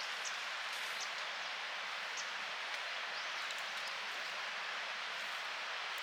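Steady outdoor background hiss, even throughout, with a few faint high ticks.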